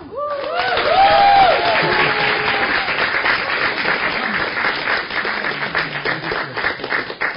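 Audience applauding a graduate called up to receive a diploma. The clapping starts suddenly and stays steady, with a few voices cheering over it in the first couple of seconds.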